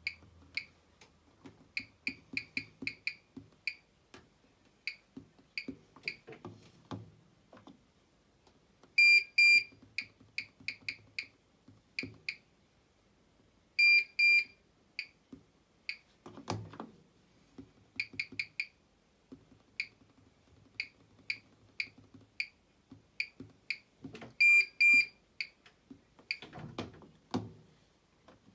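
Bosch WAN28281GB washing machine's control panel beeping: runs of short, high beeps in quick succession, typical of the panel responding as its controls are worked. Three times there is a much louder double beep. Dull thuds come twice in the second half.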